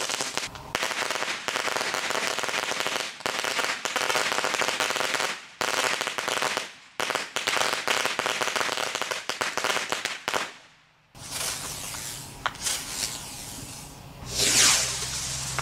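Ground fireworks crackling: dense runs of rapid pops a few seconds long, broken by short pauses. After a quieter stretch, a loud hissing rush comes near the end.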